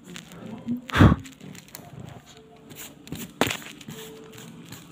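Two dull thumps of handling noise: a loud one about a second in and a sharper, shorter one near the middle.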